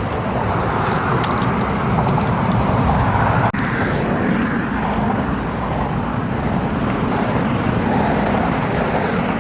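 Steady rush of highway traffic, vehicles passing at speed, which cuts out for an instant about three and a half seconds in.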